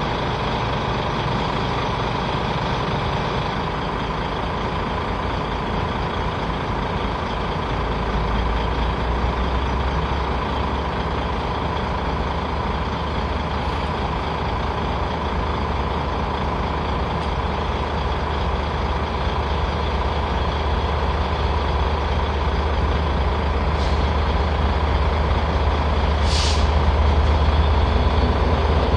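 Class 67 diesel locomotive's EMD V12 two-stroke engine running. It deepens and strengthens about seven seconds in and grows louder toward the end as the locomotive draws closer, with a short hiss near the end.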